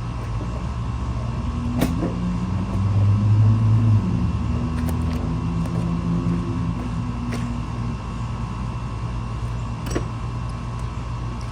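A motor vehicle's engine runs steadily, swelling louder for a few seconds early on, with a few light clicks and knocks.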